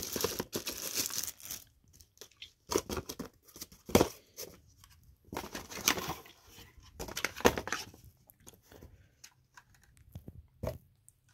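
Clear plastic wrapping rustling and crinkling as a power adapter and its cord are pulled out of their bag and handled, with a few sharp knocks, the loudest about four seconds in and again near seven and a half seconds.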